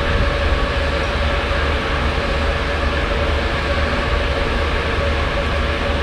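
Steady drone of a large ferry under way: a deep, constant rumble of the ship's machinery with a steady hum and an even rushing hiss over it.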